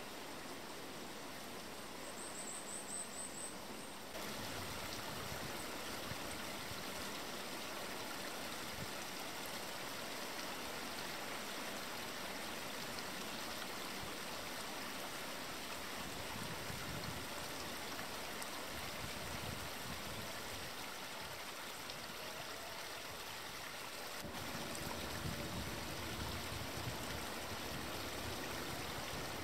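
Steady rushing of running water from a forest stream, with small shifts in level about four seconds in and again near the end. A brief high chirping about three seconds in.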